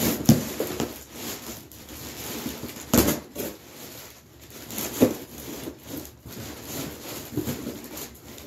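Unpacking a cardboard box of supplies: packing material rustling as items are handled, with sharp knocks near the start, about three seconds in and about five seconds in.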